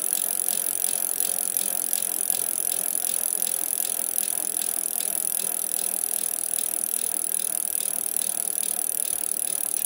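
A BMX bike's Colony freecoaster rear hub ticking steadily and rapidly, about six or seven clicks a second, as the wheel turns.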